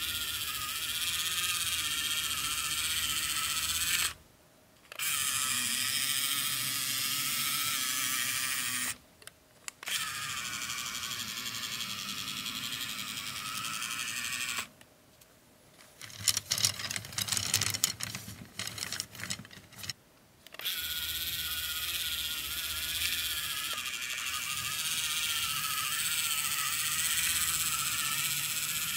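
Small electric geared motor of a miniature brass tracked model tractor running with a steady whir, cutting out briefly three times. From about sixteen to twenty seconds in, irregular clicks and clattering take over, then the steady whir resumes.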